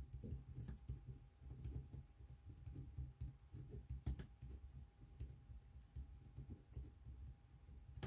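Marker pen writing on paper: faint, irregular scratches and light clicks of the pen tip against the page, over low rubbing and knocking of the hand moving on the paper and desk.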